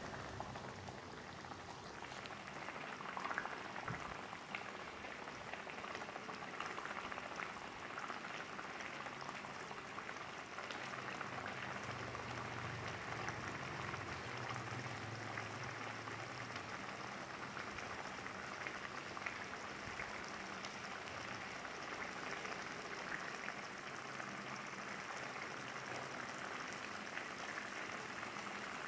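Sambal frying in hot oil in a pan: a steady sizzling and bubbling with many small crackles throughout.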